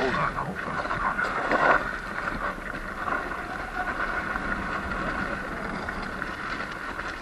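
Surron X Light Bee electric dirt bike riding over a rough desert track: a steady whine from the electric motor and drive, with tyre and road noise and wind on the microphone. A few knocks from bumps come in the first two seconds.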